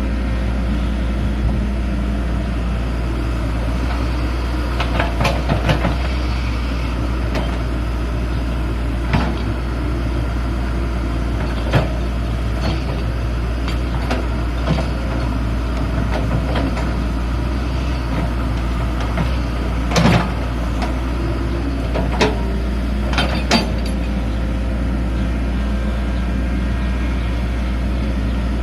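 Excavator's diesel engine running steadily with a deep drone. Scattered sharp knocks and clanks come over it, a cluster about five seconds in and the loudest about twenty seconds in.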